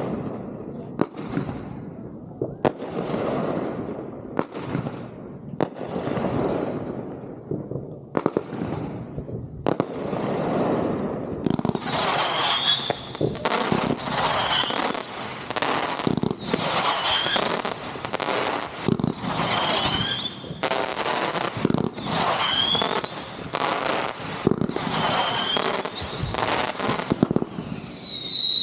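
Consumer fireworks firing in a rapid, regular string of shots about a second apart, each a sharp bang with a fading tail. From about halfway through the shots come a little faster, each with a short whistle, and a loud whistle sweeps down and back up near the end.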